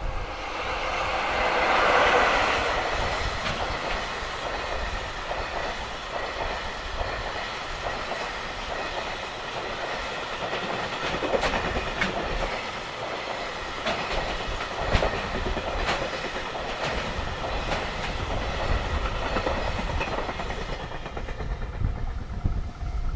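JR Freight train passing at track level: loudest as the locomotive goes by about two seconds in, then the long line of wagons running past with wheels clicking over the rail joints, easing off near the end.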